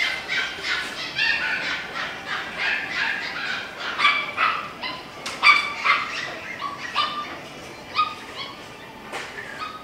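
Dogs yipping and barking in short, high-pitched calls, several a second and overlapping, thinning out after about seven seconds.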